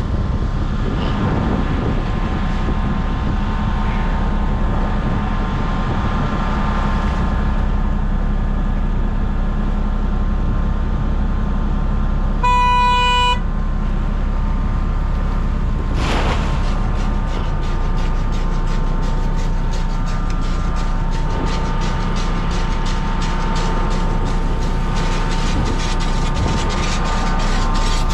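Fishing boat's engine running steadily with wind and water noise. About halfway through, a short horn-like toot sounds once, for under a second. A few seconds later a fast clattering rattle and a steady whine set in from the deck gear.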